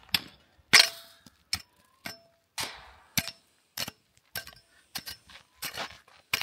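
A steel garden hoe chopping and scraping into hard, stony dirt, with sharp strikes coming irregularly about twice a second. Several strikes clank with a brief metallic ring.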